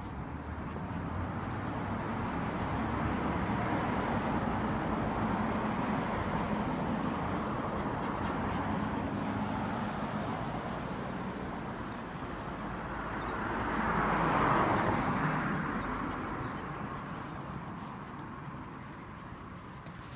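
Road traffic: cars passing on the street, a rushing noise that swells and fades. One long swell runs over the first half, and a louder, shorter pass comes about two thirds of the way in.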